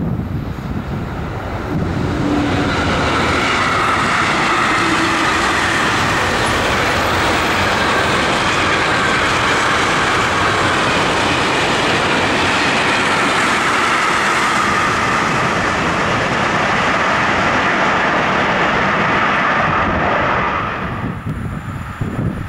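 Freight train of mixed goods wagons (covered wagons, a tank wagon, open wagons) rolling past at speed: a loud, steady rumble and rattle of wheels on rail that dies away about 21 seconds in as the last wagons pass.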